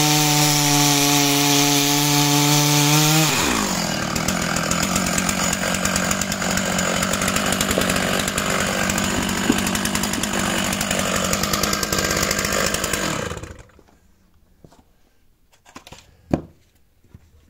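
Large two-stroke chainsaw running at full throttle as it finishes a cut through a block of wood. About three seconds in the throttle is released and the engine speed falls to idle. It idles for about ten seconds, then the engine is switched off and stops suddenly, followed by a few faint knocks and one sharp knock near the end.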